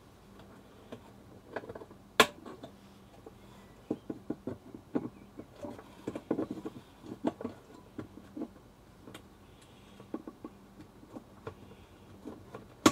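Side cutters and fingers working at a leaked NiCad backup battery on a computer motherboard: scattered small clicks, taps and scrapes, with two sharp snips, one about two seconds in and one right at the end.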